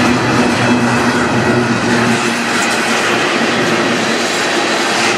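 Freight train tank cars rolling past at speed: a loud, steady noise of steel wheels on the rails, with a low droning tone that comes and goes.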